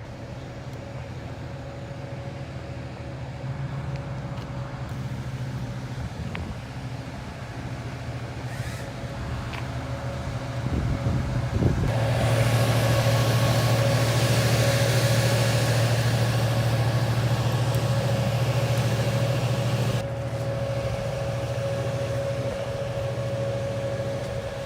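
A large engine running steadily. About halfway through it gets markedly louder with a rush of noise for some eight seconds, then eases back down.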